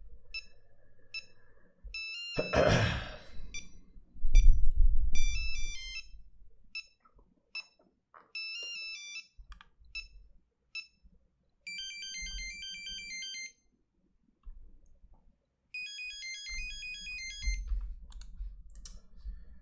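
Nokia 3310 monophonic ringtones playing one after another: short buzzy beeping tunes that step from note to note, each a second or two long, with short pauses between them. A brief rush of noise comes about two and a half seconds in, and a low thump about four seconds in.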